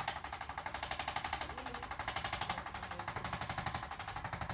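Handheld percussion massager running against the body, a steady rapid tapping of about ten strikes a second.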